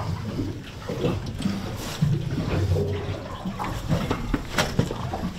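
Wet sloshing and scraping as hands grapple on the aluminium boat deck, with irregular knocks and a sharp knock about four and a half seconds in.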